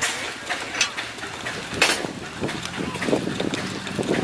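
Peerless steam traction engine running, its exhaust steam chuffing out the smokestack about twice a second. A steady low hum comes in about two and a half seconds in, with the puffs coming closer together.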